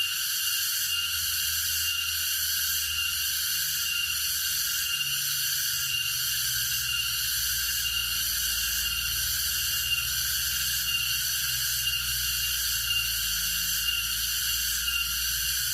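Forest insects droning in a steady, high-pitched chorus, with a faint pulse about once a second.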